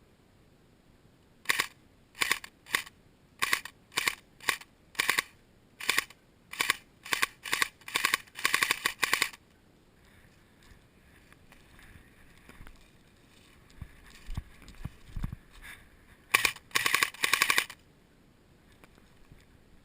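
Airsoft guns firing: a run of single shots, about two a second, that speeds into rapid bursts. After a pause with a few low knocks, another rapid burst comes near the end.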